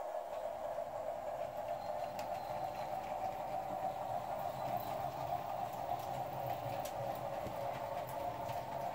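A steady hum from the powered model train layout, with a few faint clicks.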